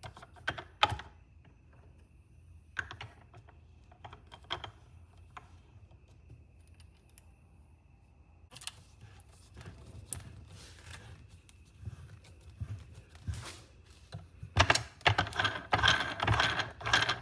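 Small pen-kit parts being handled and fitted together by hand: scattered light clicks and taps, then a dense run of clicking and rattling near the end.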